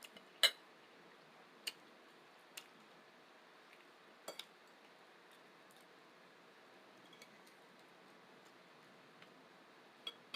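Light, isolated clinks and taps of kitchen utensils against dishes, about half a dozen, the loudest about half a second in and one near the end, over a faint steady hiss.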